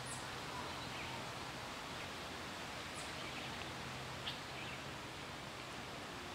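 Steady outdoor background noise with a few faint, brief high bird chirps and a small tick about four seconds in.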